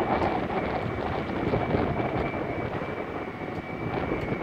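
Engine of a 560-ton mobile boat hoist running steadily: a rough, even rumble with a thin, constant high whine over it.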